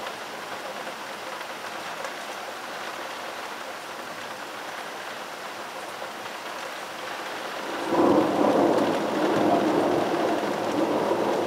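Steady rain, then about eight seconds in a loud rumble of thunder breaks in and keeps rolling.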